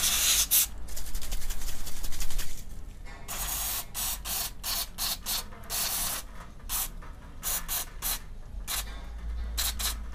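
Aerosol carb cleaner sprayed from a can in short hissing bursts: one longer spray about three seconds in, then a run of quick puffs. It is washing old oil off a scooter's oil strainer cap.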